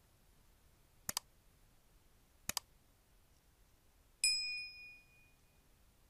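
Sound effects of an animated subscribe-button overlay: two mouse clicks about a second and a half apart, then a bright bell-like ding that rings out for about a second.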